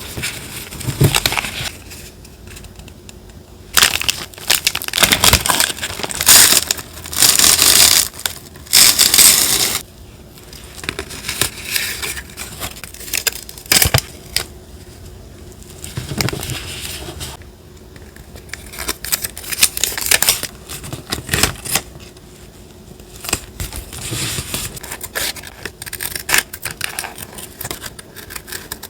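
Paper being handled for journal collage: crinkling and rustling in irregular bursts with small clicks, loudest from about four to ten seconds in.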